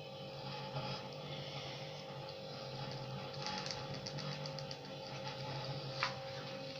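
Steady low electrical hum, with a short run of light rapid ticks about halfway through and a single click near the end.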